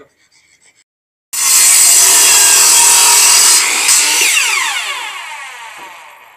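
Miter saw running at full speed and cutting through a wooden pallet slat, then switched off, its motor and blade winding down with a falling whine that fades.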